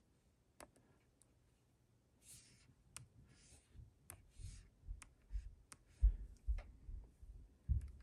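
Plastic stylus tapping keys on a handheld inkjet printer's touchscreen: a run of light clicks, about one every second, one per letter typed. Low soft thumps of the device being handled come in the second half.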